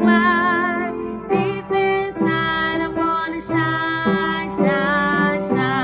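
Music: a song with a voice singing held, wavering notes over instrumental accompaniment.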